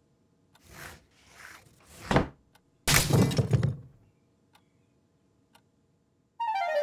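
Cartoon sound effects: a few short soft noises, then a sudden loud crash about three seconds in that dies away over about a second. Music starts just before the end.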